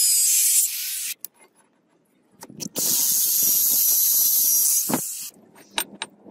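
Angle grinder with a thin cut-off disc cutting through the steel outer ring of a rusted ball bearing: a loud, high, hissing screech. It stops about a second in, starts again near three seconds for another cut of about two and a half seconds, and a few sharp clicks follow near the end.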